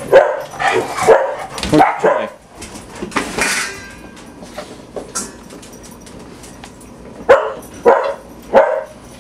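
A dog barking in short, sharp barks. There is a quick run of about six in the first two seconds, then three more near the end, spaced about half a second apart.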